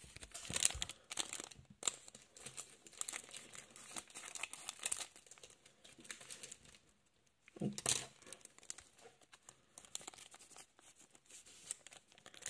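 Foil wrapper of a Pokémon trading card booster pack crinkling and tearing as it is opened by hand, busiest in the first few seconds, then lighter crackling as the cards are drawn out. One sharp knock about eight seconds in.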